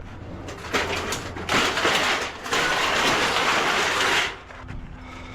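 Vehicle tires crunching and crackling over loose scrap debris on the ground, loudest for a couple of seconds in the middle and then stopping. A faint low engine hum runs underneath.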